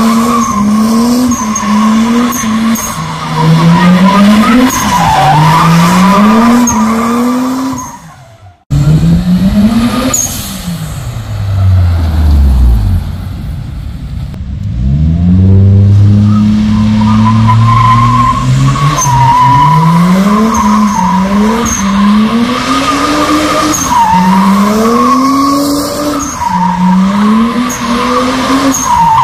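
Toyota Mark II's turbocharged 1JZ-GTE straight-six revving up and dropping again and again through a drift, with the rear tyres squealing over it. About halfway the engine falls to a low, quieter pull for a few seconds, then the rising revs and tyre squeal pick up again.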